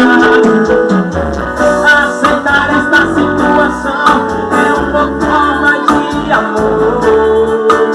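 Band music: a song with plucked guitar, a pulsing bass line and steady percussion.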